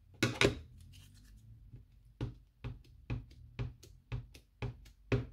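Light, evenly spaced taps of an ink pad dabbed again and again onto a clear stamp on an acrylic block, inking the stamp: two taps at the start, then a steady run of about two taps a second from about two seconds in.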